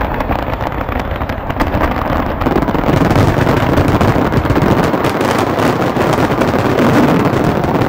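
A large fireworks display going off: a dense, continuous crackling and banging of bursting shells and fountains, growing louder about two and a half seconds in.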